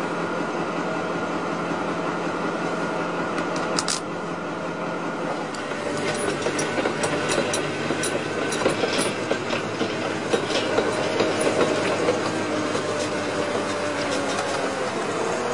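Underground pipe-laying machine running with a steady mechanical drone, and metal clanks and rattles starting about four seconds in, thickest in the middle.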